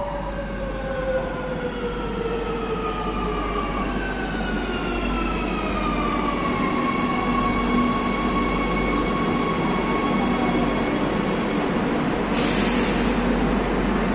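Madrid Metro train arriving and braking at a platform. Its motor whine falls in pitch and levels off as the train slows, over a rumble that slowly grows louder. A short, sharp hiss comes near the end.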